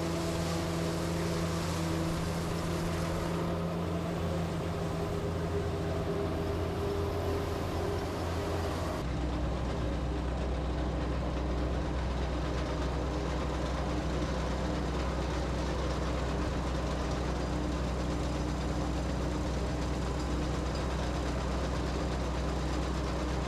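Farm machinery engine running steadily with a constant hum. About nine seconds in the sound changes abruptly to a lower, deeper engine drone with less hiss above it.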